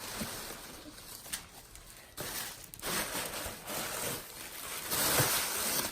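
Rustling and crinkling of packaging as items are pulled out of a box, coming in several bursts, the loudest near the end.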